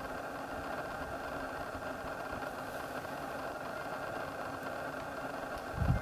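Steady, even background hum and hiss, with a soft low bump near the end.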